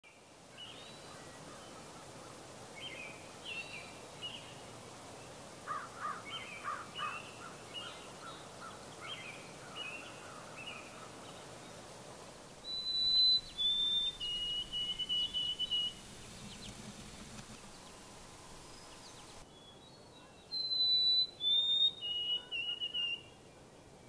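Birds singing: a White-throated Sparrow gives its clear whistled song twice, each one two long whistles stepping down and then a run of repeated notes. Before that comes a mix of short chirps and a quick series of lower notes from other birds.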